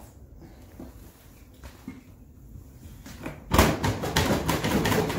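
Hard plastic Ryobi LINK tool boxes knocking and rattling against each other as the stack is worked by hand, starting about three and a half seconds in after a few faint creaks; no latch clicks in, the sign of a box that will not lock onto the one below.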